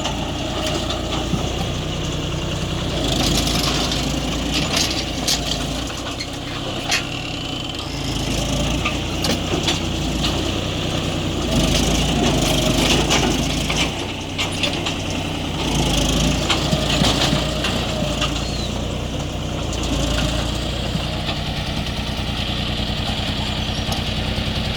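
John Deere tractor's diesel engine running steadily while working, its sound swelling several times, with scattered knocks and clatter over it.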